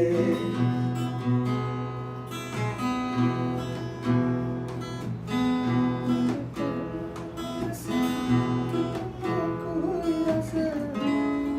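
Music: an instrumental break in a Bengali folk song, with strummed acoustic guitar over held notes and a steady rhythm.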